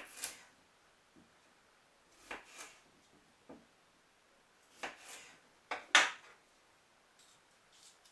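Kitchen knife cutting raw potatoes into quarters on a wooden cutting board: about five separate cuts, each a quick crisp slice with a knock of the blade on the board, the loudest about six seconds in.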